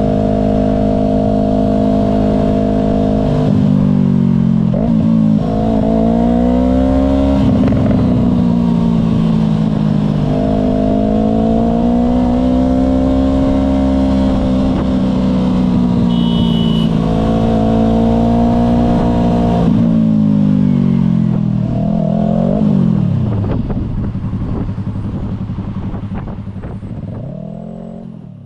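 Yamaha R3 parallel-twin engine through an M4 Street Slayer exhaust while riding. It holds a steady note, then the revs rise and fall several times, drop to a low note after about 22 seconds, and the sound fades out near the end.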